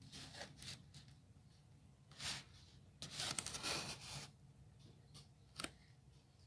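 Faint scraping and rustling of foam sheet pieces being pushed into place against foam walls, with a longer scrape about three seconds in and a small click near the end.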